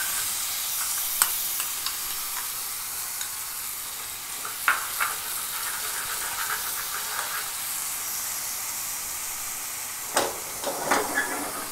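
Chilli powder and fenugreek paste sizzling in hot coconut oil in a pan, stirred with a metal spoon that scrapes and taps the pan a few times. The paste is frying until the oil separates and clears.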